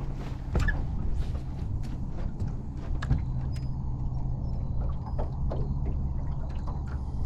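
A steady low mechanical hum with scattered light clicks and taps throughout.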